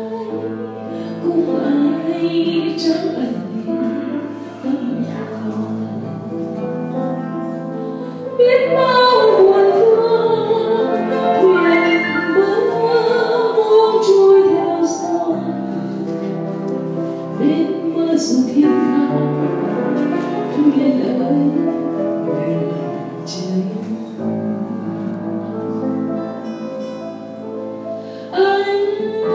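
A woman singing a Vietnamese song into a microphone, accompanied by piano.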